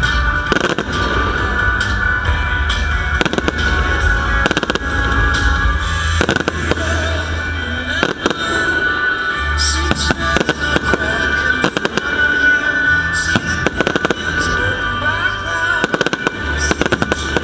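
Fireworks display: aerial shells bursting in repeated bangs, some in quick clusters, with music playing throughout.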